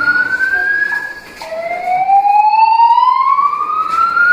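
Building fire alarm sounding a slow rising sweep tone. One upward sweep ends about a second in, and after a brief gap the next begins low and climbs steadily in pitch.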